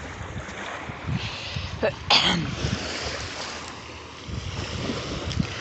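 Ocean surf and wind buffeting the microphone, a steady rush, with one short loud burst about two seconds in.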